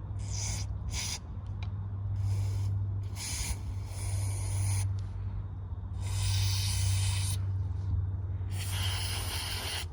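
Aerosol carburettor cleaner sprayed in a series of short hissing blasts, some over a second long, flushing the passages and fuel tube of a Briggs & Stratton lawn mower carburettor.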